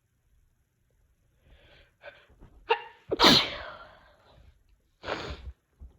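A sneeze: a few quick breathy intakes building to a catch, then one loud sneeze burst that tails off over about a second. A shorter puff of breath follows about two seconds later.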